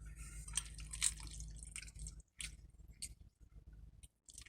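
Close-up wet eating sounds of spaghetti in sauce being chewed and eaten off a spoon: a scatter of small, sticky, smacking clicks.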